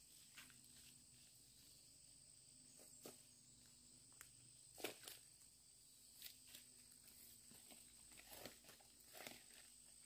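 Faint, scattered rustles and soft knocks of hands and a tool working dry soil and leaf litter, over a steady, thin, high-pitched insect drone.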